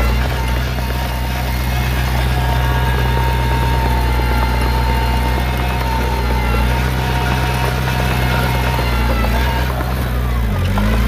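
Heavy earthmoving machine's diesel engine running steadily, its pitch dipping briefly about ten seconds in.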